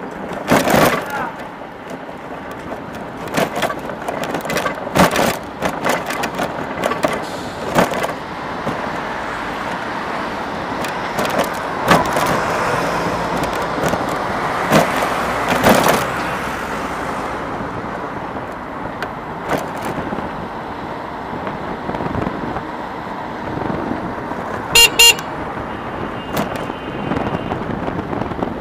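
Street traffic heard from a moving e-bike: a steady rush of road and wind noise broken by repeated sharp knocks and bumps. A vehicle horn gives a short, loud toot about 25 seconds in.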